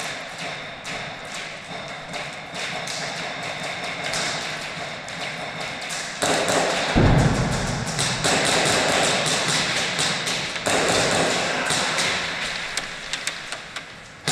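Airsoft gunfire and BBs striking walls and props: a dense run of irregular sharp taps and clicks. A louder rush of noise comes in from about six to eleven seconds, with a heavy thud about seven seconds in.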